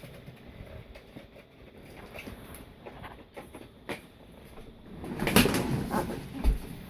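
Handling noise from working on an opened tablet and its charger: scattered light clicks, then a louder scraping rustle for about a second, ending in a low thump.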